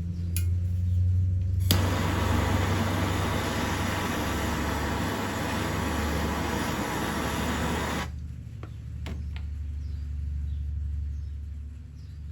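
A handheld gas torch hissing steadily for about six seconds while heating a drill bit, switched on and off abruptly, over a steady low hum.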